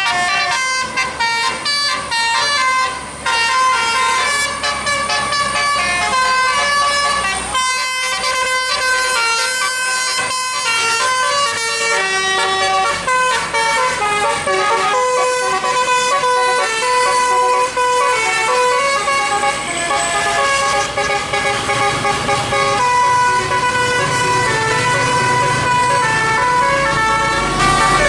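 A bus's multi-note musical air horn (telolet) playing a long, fast melody, one sustained note after another, without a break. Underneath, a vehicle engine is running, stronger in the last few seconds.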